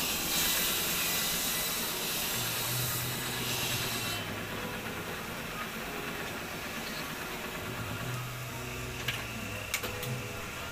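A loud hiss for about four seconds, stopping suddenly, over a steady low hum, with a few sharp clicks near the end.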